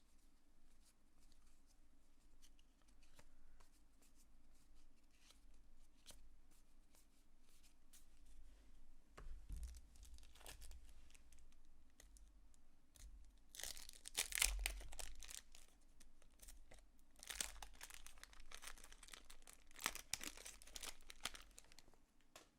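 Baseball card pack wrapper being torn open and crinkled, in three bursts of tearing from about halfway through. Light clicks and rustles of cards being handled come before them.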